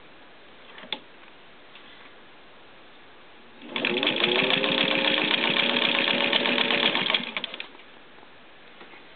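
Singer 15-91 sewing machine with its gear-driven motor running in one burst of about three and a half seconds. The motor hum rises in pitch as it spins up, then holds steady under a rapid clatter of needle strokes, and dies away as the machine stops. A single faint click comes about a second in.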